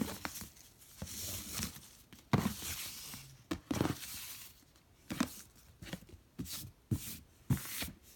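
A fabric ribbon being untied and slid off a cardboard gift box: about three rustling swishes of ribbon over the box in the first half, then a run of short light taps and knocks of hands and ribbon against the box.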